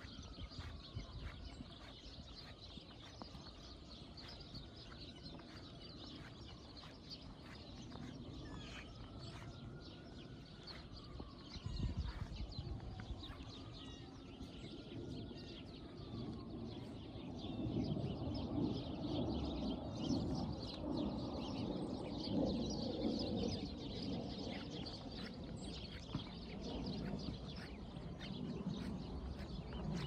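Footsteps crunching through snow at a walking pace. A faint wail rises and falls slowly several times in the first half, and the background gets busier and louder about halfway through.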